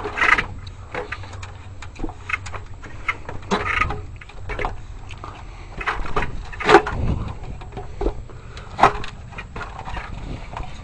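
Irregular knocks and rustles of someone climbing a tall extension ladder and handling gear, a few sharper knocks standing out.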